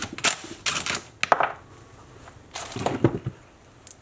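Impact driver with a socket rattling in several short bursts, loosening the bar nuts on a Stihl 025 chainsaw's side cover.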